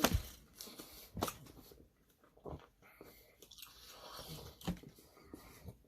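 Chewing and mouth sounds of someone eating a Papa John's Papadia flatbread sandwich, with a few sharp smacks and clicks scattered among quieter chewing.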